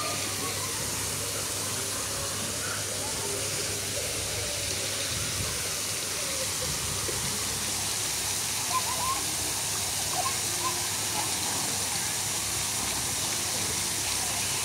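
Steady rushing hiss of water from spraying garden fountains and a waterfall, with faint voices of people here and there.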